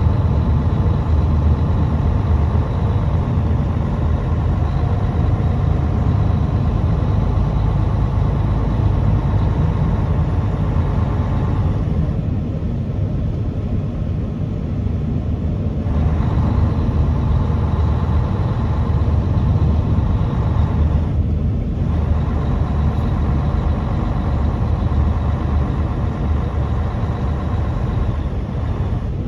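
Truck engine and road noise while driving, a steady low rumble. The higher part of the noise drops away for a few seconds about twelve seconds in and again briefly around twenty-one seconds in.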